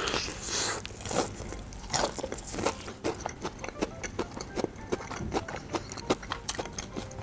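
Close-miked biting and chewing of a crispy fried-chicken burger: a loud crunch of the breaded coating near the start, then a run of short crunches and wet mouth clicks as it is chewed.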